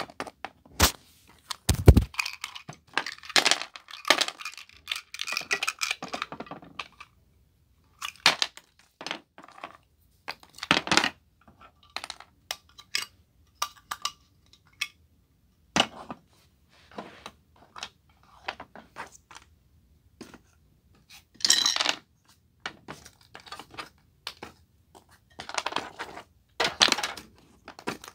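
Irregular clicks, knocks and clatter of small hard objects being handled close to the microphone, in scattered clusters with short gaps between them.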